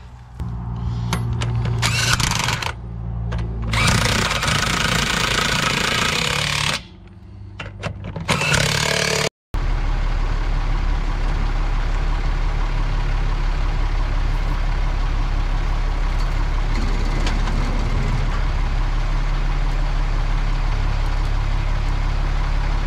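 International 4900 truck engine running, with several bursts of louder noise in the first nine seconds. After a sharp break it runs steadily at idle.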